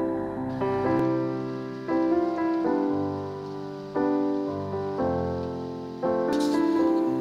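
Background piano music: slow, gentle chords struck about every two seconds, each left to ring and fade.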